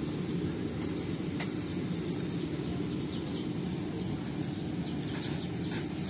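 Steady low hum of distant traffic, with a few short, high chirps from house sparrows.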